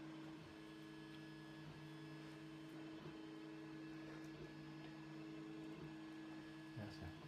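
Faint, steady electrical mains hum: room tone.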